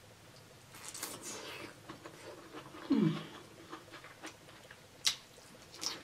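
Close-up eating sounds: soft wet mouth noises as king crab meat is pulled from the shell and eaten. About three seconds in there is a short hum that falls in pitch, and near the end two sharp clicks.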